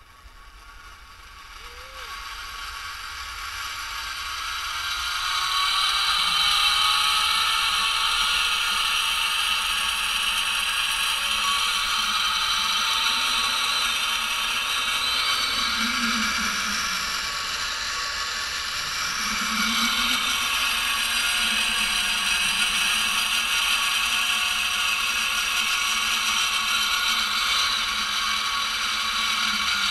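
A zip-line trolley's pulley wheels run along the steel cable. The rising whine grows louder over the first several seconds as the rider picks up speed, then holds steady.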